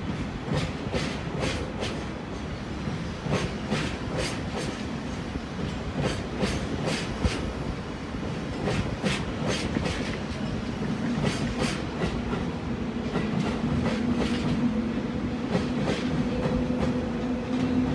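Freight train wagons rolling past, their wheels clicking rhythmically over the rail joints in repeated clickety-clack groups. A steady low hum comes in during the second half.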